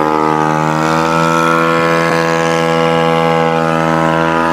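Single-cylinder Bajaj Pulsar motorcycle engine driving a homemade boat, running flat out at full throttle in fifth gear: a steady droning note that climbs slightly in pitch over the first second and then holds.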